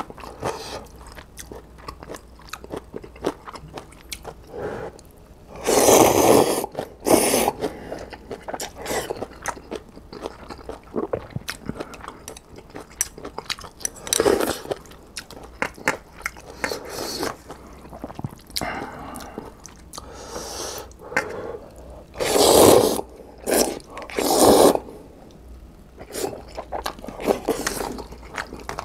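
Close-miked eating of instant ramen: wet chewing and crunching mouth sounds throughout. Several louder slurps of noodles and broth come through, one about six seconds in, one mid-way, and two close together near the end.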